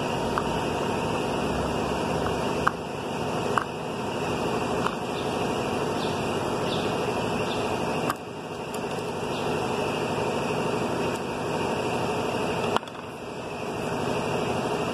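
Steady mechanical hum and hiss, with a few light clicks and small knocks.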